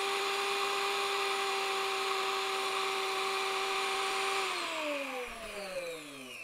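Stainless-steel electric herb grinder grinding dried nettle leaves, its motor running with a steady high whine. About four and a half seconds in it is switched off and the whine falls in pitch as the blade spins down.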